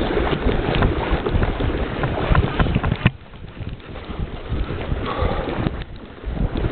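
Wind buffeting the microphone over water noise on a fishing kayak, with scattered knocks and one sharp knock about three seconds in, after which it is quieter for a few seconds.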